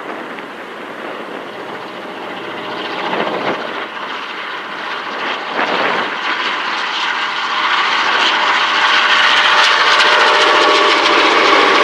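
Four Clyde EMD 49 class diesel locomotives hauling a grain train approach and pass, their two-stroke diesel engines growing steadily louder, with the grain wagons' wheels running by near the end.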